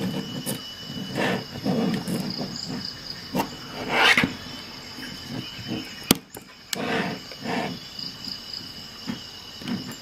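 Stainless steel Victorinox SwissTool multi-tools being handled: knocks, scrapes and rustles as the pliers and handles are moved and set down on a mat, with a sharp metallic click about six seconds in. A steady high-pitched whine runs underneath.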